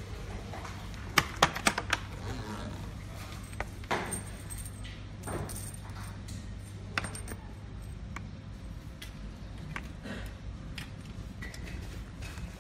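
Handling noise from a pipe inspection camera reel and its cable: a quick run of four sharp clicks about a second in, then scattered knocks and rattles, over a low steady hum.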